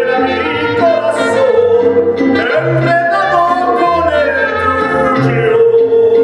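Mexican regional band song: a voice singing a melodic line over the band, with a pulsing bass line underneath.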